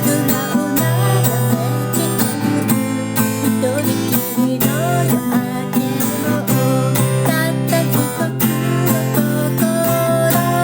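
Acoustic guitar strummed in a steady rhythm, playing song chords at about 125 beats per minute.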